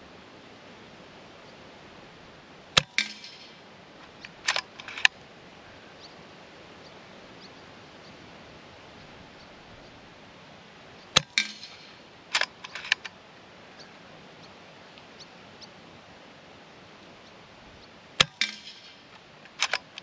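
FX Wildcat MKIII PCP air rifle firing three shots several seconds apart, each a sharp crack. About a second and a half after each shot come two clicks: the side lever being worked back and forward to load the next pellet.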